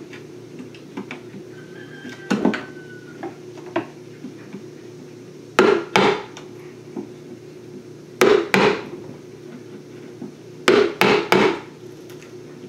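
A chisel is being knocked into the wooden top board of a beehive to chip out a slot. The sharp wooden knocks come once, then in pairs, then in a quick run of three near the end.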